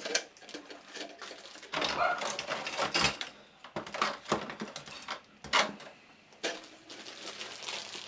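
Hard plastic parts and packaging being handled: a toilet fill valve and its small parts being pulled from a plastic blister pack and bags, with rattling, rustling and several sharp clicks and knocks.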